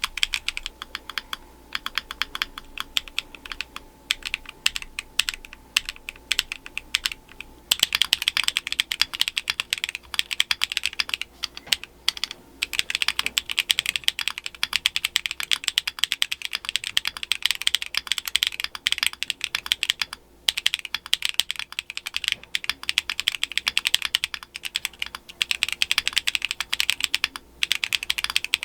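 Fast, continuous typing on an Akko ACR Pro 75 mechanical keyboard fitted with DSA keycaps, a dense run of keystroke clacks. It grows louder and denser about eight seconds in, with a couple of brief pauses later on.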